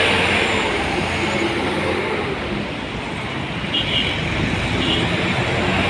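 Road traffic: tour buses and cars driving past, their engines running under a steady road noise.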